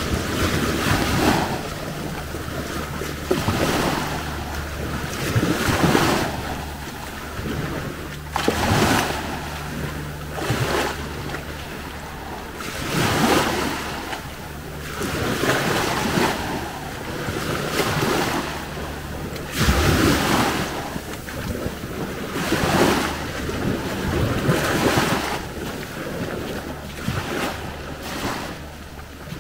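Sea waves washing onto a beach, one surge every two to three seconds, with wind buffeting the microphone and a steady low hum underneath.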